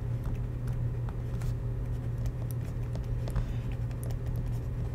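Faint scattered taps and scratches of a stylus writing on a drawing tablet, over a steady low hum.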